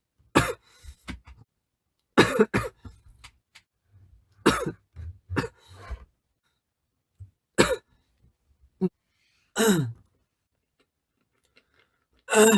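A young man coughing in about seven short bouts a few seconds apart, some of them quick double coughs. It is a lingering cough left over from a cold that has otherwise cleared up.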